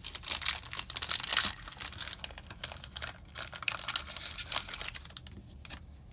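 Foil booster-pack wrapper crinkling and tearing as it is pulled open by hand. The crackle is densest in the first second and a half, then comes in patches and thins to a few light crinkles near the end.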